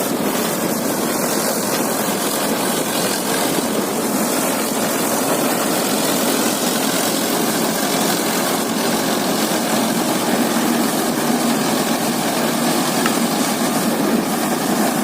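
Vikas 315 tractor-mounted combine harvester on a Swaraj 963 tractor, running steadily at work: tractor engine and harvester machinery making a continuous even drone.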